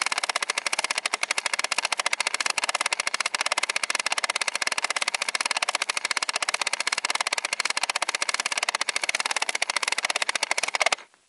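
Film-advance mechanism of a 1970s toy movie viewer clattering as the film runs through: a rapid, even stream of plastic clicks, about twenty a second, that stops abruptly near the end.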